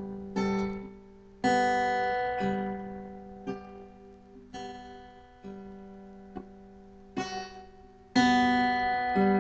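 Acoustic guitar played with the fingers: chords struck and left to ring out, the loudest about half a second, a second and a half and eight seconds in, with softer single plucked notes between them.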